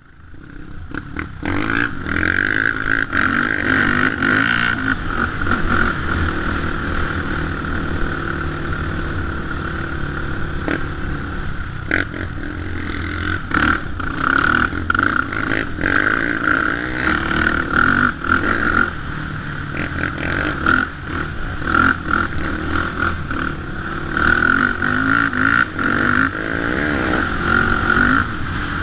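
Sport quad's single-cylinder four-stroke engine, ridden along a dirt trail, revving up and down as the throttle opens and closes, with occasional knocks and rattles from the bumps.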